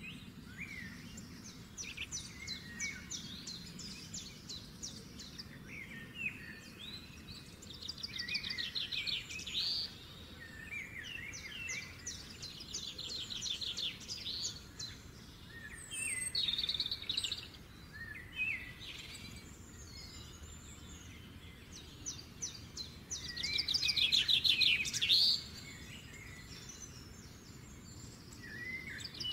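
Several songbirds chirping and singing, with whistled slides and fast trills of rapidly repeated notes, loudest in a burst of trilling a few seconds before the end.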